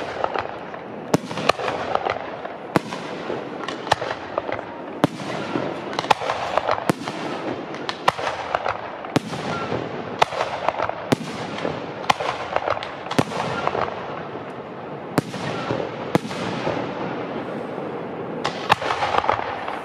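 Fireworks display: a steady run of sharp bangs from bursting shells, roughly one or two a second, over a continuous hiss and crackle, with a quick cluster of bangs near the end.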